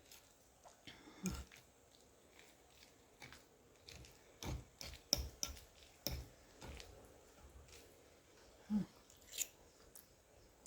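Quiet, irregular eating sounds: chewing with scattered short mouth clicks and smacks.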